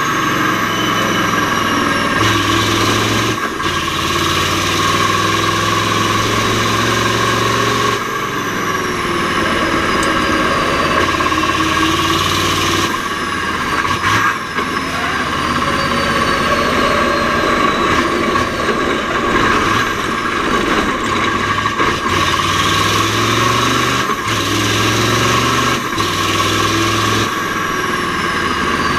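Mack R-series V8 diesel truck engine running hard under load. Its note breaks and resets several times, the pattern of gear changes through the Roadranger gearbox, and a high whine falls in pitch each time.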